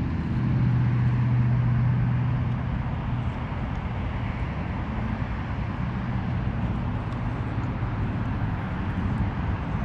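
Steady road traffic from a nearby highway, cars passing, with a low engine hum that eases off after the first couple of seconds.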